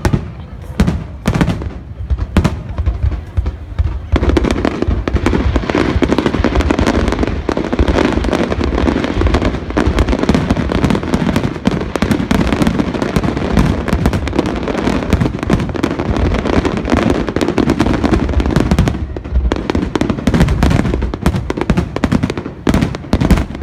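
Fireworks display: rapid bangs and crackling bursts, thickening into a dense, near-continuous barrage about four seconds in and thinning back out to separate bangs near the end.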